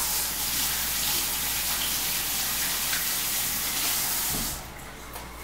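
Steady rushing hiss of liquid, running for about four and a half seconds and then stopping abruptly.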